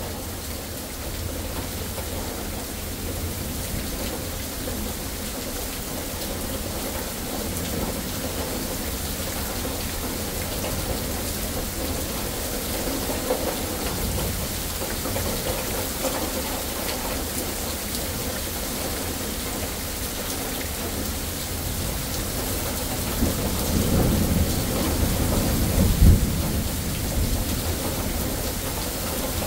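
Steady rain falling on pavement and foliage. Near the end, a thunderstorm's low rumble swells and peaks in one loud jolt about three seconds before the end.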